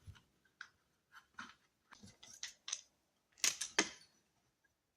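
Hand tools and small parts clicking and scraping in irregular short bursts while a chainsaw is taken apart, with a sharper cluster of clicks about three and a half seconds in.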